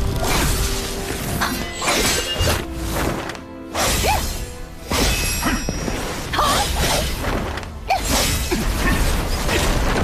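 Dramatic background music under animated battle sound effects: a run of sudden crashes, shattering impacts and whooshing swipes, with short lulls about three and a half and five seconds in.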